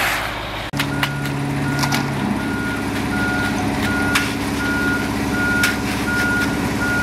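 A truck's reversing alarm beeping evenly, about once every 0.7 seconds, over its running engine, starting about a second in. A few sharp clicks are heard among the beeps.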